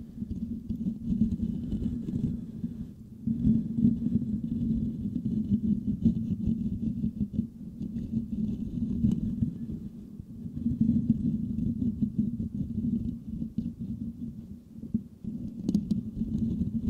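Fingertips scratching and rubbing directly on a microphone's metal mesh grille, giving a dense, muffled, crackly scratching that swells and eases in waves, with brief lulls about 3 and 10 seconds in.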